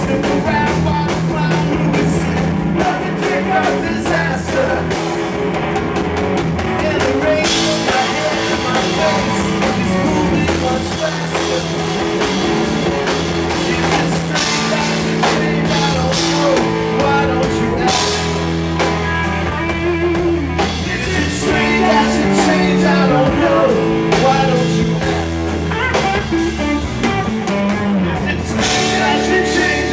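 Live rock band playing: electric guitar lines over electric bass and a steady drum-kit beat.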